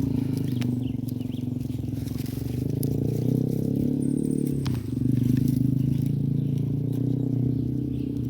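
A low, steady engine drone with a brief dip and change in pitch about five seconds in.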